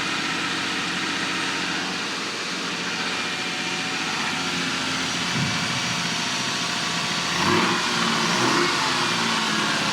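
Toyota 1G-FE inline-six engine idling just after a valve adjustment, running steadily and briefly a little louder about seven seconds in. It carries a bad-sounding noise that the owner suspects comes from the crankshaft.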